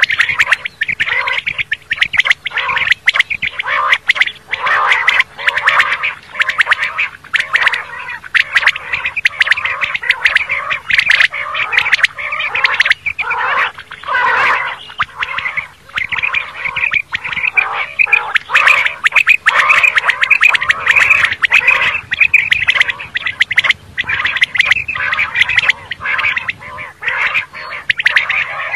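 Common quail calling over and over: a dense, unbroken run of rapid, overlapping calls and sharp clicks.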